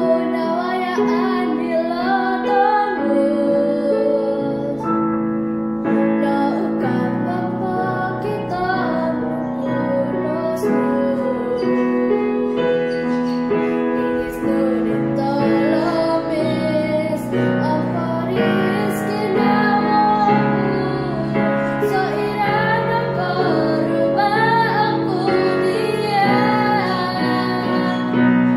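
A young girl singing solo in Kadazandusun over a piano accompaniment, her voice carrying the melody above sustained chords.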